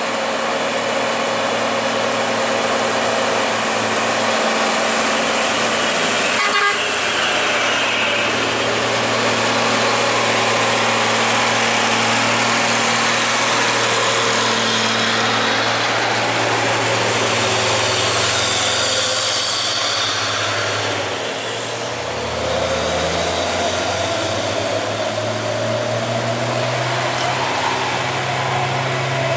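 Heavy diesel trucks passing on a wet road, engines running under load with steady low drones, over a constant hiss of tyres on wet tarmac.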